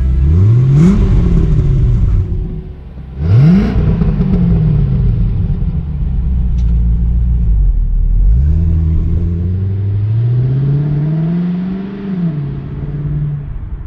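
1995 Chevrolet Corvette's LT1 V8 exhaust, revved twice in quick blips from idle. It then pulls away, the engine note climbing steadily as the car accelerates and easing off near the end.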